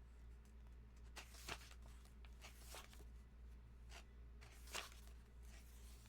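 Faint paper rustles as pages of a large hardcover comic omnibus are turned, several soft swishes spaced a second or so apart over a steady low hum.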